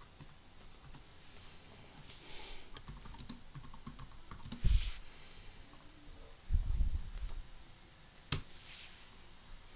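Typing on a computer keyboard: a run of quick key clicks, then a single sharp keystroke near the end. Dull low thumps come in between, about halfway through and again a little later.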